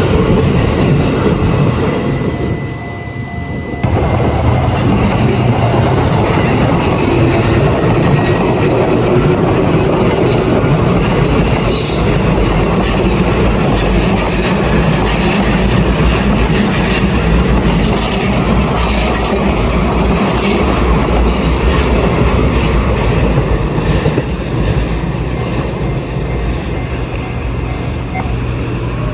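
JR Ome Line electric train passing close by over a level crossing, wheels clattering on the rails and squealing, with high-pitched squeals clustered in the middle of the passage.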